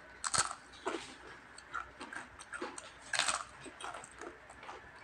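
Crunching and chewing of crispy fried chicken skin: a string of short, sharp cracks, loudest just after the start and again about three seconds in.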